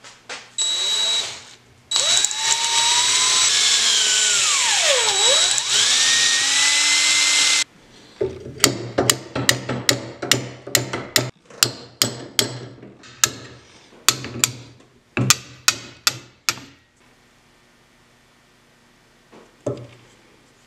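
A power tool runs for about six seconds, its whine dipping in pitch and climbing back as it loads. Then a hammer strikes the rusty steel head of an old ball-peen hammer about twenty times in quick succession, knocking it off its worn wooden handle.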